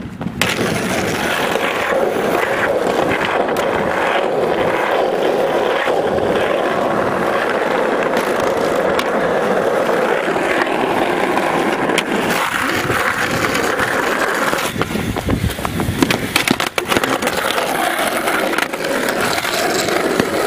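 Skateboard wheels rolling over rough asphalt, a loud, steady rolling noise, with a few sharp clacks of the board in the second half.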